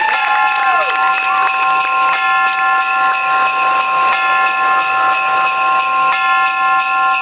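Marching snare drums played along to a recorded Christmas music track, with jingle bells shaking steadily and held chords that change about every two seconds. A short swooping tone sounds about a second in.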